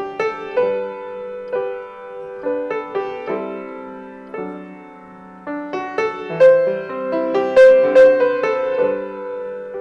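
Solo piano playing a slow, lyrical piece: single notes and chords struck and left to ring, swelling to louder chords about six seconds in before easing off near the end.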